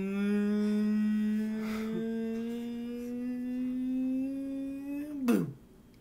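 A man's voice holding one long note for about five seconds, the pitch creeping slowly upward, then sliding down and breaking off just after five seconds, with a sharp click at that moment.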